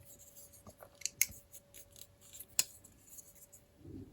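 Light clicks and taps from a small folding knife being handled and set down on a scale. The clearest clicks come about a second in and again about two and a half seconds in.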